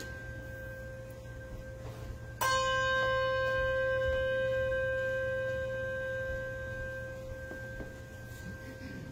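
A bell struck once about two and a half seconds in, ringing on with a slow fade over several seconds; the ring of the previous stroke is still dying away at the start. Strokes come about eight seconds apart, a slow toll.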